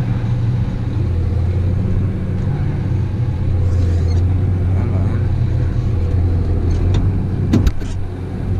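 Farm machinery engine running steadily at a constant speed. About seven and a half seconds in there are a few sharp clicks and a thump.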